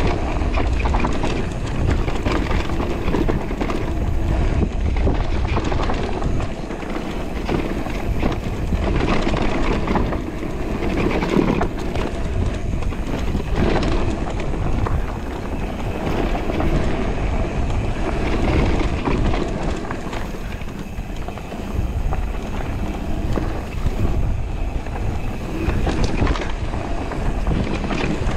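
Radon Deft electric mountain bike riding a dirt forest trail: steady tyre noise on the dirt with constant small rattles and knocks from the bike over the bumps, and wind rumble on the bike-mounted camera's microphone.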